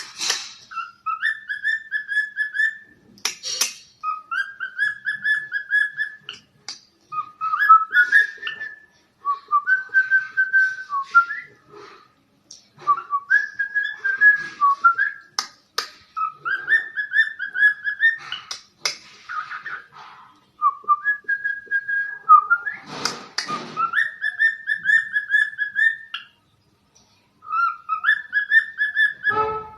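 Cockatiel whistling its warbling song in repeated phrases of a second or two, with short pauses between them and a few brief scuffling noises mixed in, the loudest about 23 seconds in.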